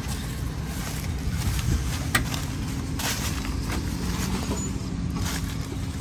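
Steady low rumble of an idling farm tractor engine, with a faint steady hum over it and a couple of sharp clicks about two and three seconds in.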